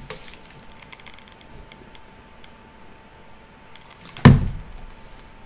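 Small clicks of a wooden clothespin and cardstock butterfly wings being handled, then one loud thunk about four seconds in as a hot glue gun is brought to the work over a wooden tabletop.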